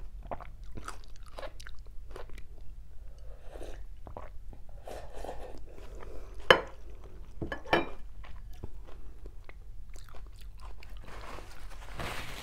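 Mouth sounds of a person drinking soup broth straight from a glass bowl held to the lips: scattered sips, gulps and wet clicks, with a sharp click about six and a half seconds in and another about a second later. Near the end a paper napkin rustles as it is wiped across the mouth.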